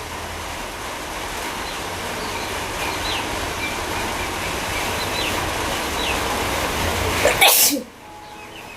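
A woman sneezes once, loudly, about seven seconds in, over a steady background noise that swells slowly and drops away right after the sneeze. Faint short bird chirps come earlier.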